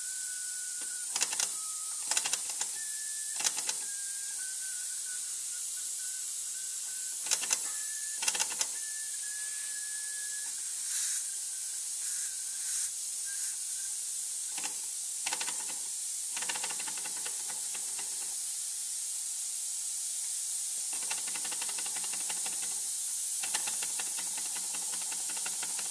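Low-pressure compressed air hissing steadily out of leaks around the loose steam feed pipe of a 1950 Fleischmann toy steam engine, with a thin wavering whistle for roughly the first half. Scattered clicks come as the flywheel and oscillating cylinder are worked by hand to coax the engine into starting.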